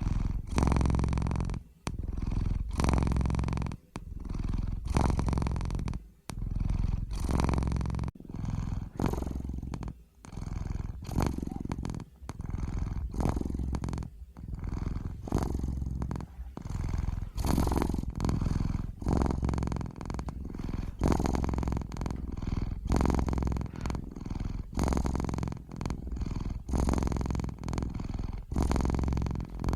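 Domestic cat purring steadily, the purr rising and falling in regular strokes about once a second as the cat breathes in and out.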